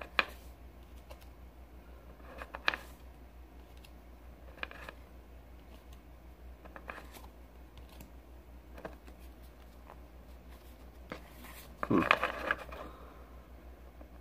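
Pokémon trading cards being slid one at a time from the back of a stack to the front: a crisp card flick or snap every couple of seconds, with a longer, louder rustle of the stack being handled about twelve seconds in.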